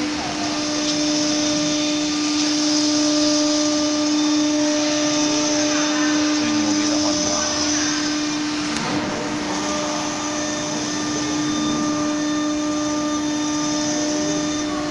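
Spindle of an ATC CNC gantry router running at a steady high pitch while machining a wooden panel, over a steady hiss.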